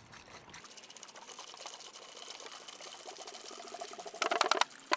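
Cold water pouring from a plastic gallon jug onto ice cubes in an insulated plastic water jug, a steady splashing stream that turns into a short, louder spell of glugging about four seconds in.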